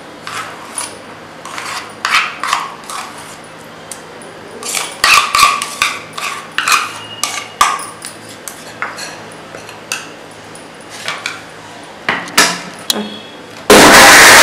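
A metal spoon taps and scrapes against a stainless steel mixer jar in irregular clinks as butter is scooped in. Near the end a Panasonic mixer grinder's motor switches on suddenly and runs loud and steady.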